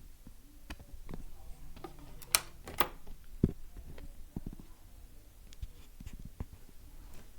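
Hunter Westminster ceiling fan running with a faint steady motor hum, broken by a few sharp clicks. The fan runs slow and starts sluggishly, which the owner puts down to a drifting run capacitor.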